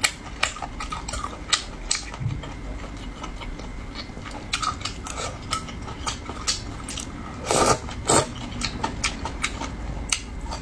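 Utensils clicking and clinking against dishware in a rapid, irregular run of sharp clicks, with two louder, longer noises about three-quarters of the way through.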